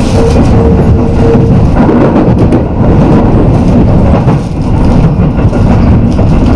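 Keio Line electric commuter train running along the track, heard from just behind the driver's cab: a loud, steady rumble of wheels and running gear. A humming tone rides over it and drops out about two seconds in.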